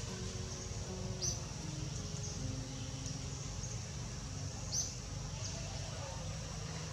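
Outdoor forest ambience: a steady high-pitched drone like insects, with two short sharp chirps, one about a second in and one near five seconds, over a low rumble.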